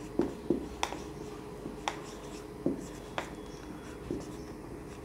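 Marker writing on a whiteboard: short, irregular squeaks and taps as the pen tip strokes and lifts off the board.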